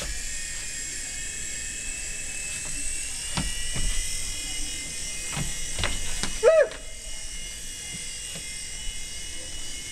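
Small electric motors and rotors of a toy helicopter whining steadily in flight. A few light knocks come between about three and six seconds in, and there is a brief voiced exclamation at about six and a half seconds, the loudest moment.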